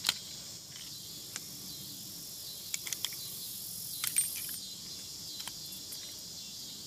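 Scattered faint metallic clicks from an M1895 Nagant revolver being unloaded by hand: the cylinder is turned at the loading gate and spent cases are pushed out one at a time with the ejector rod, which has no spring return. Insects chirr steadily underneath.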